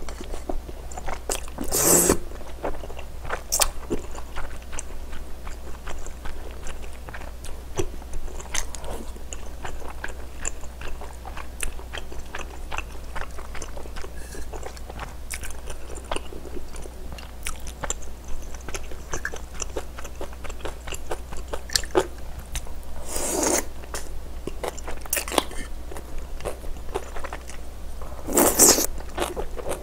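A person eating spicy rice-cake and dumpling soup with glass noodles close to the microphone: chewing with small wet clicks throughout. Louder slurps from the bowl come about two seconds in and twice in the last seven seconds.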